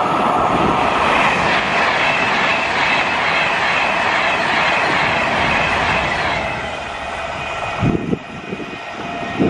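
Class 390 Pendolino electric express passing close at speed: a loud rush of wheel and air noise with clickety-clack over the rail joints. It fades after about six seconds as the last coach goes by, mixed with the steam railtour's coaches running away on the curve. A couple of sharp low thumps come near the end.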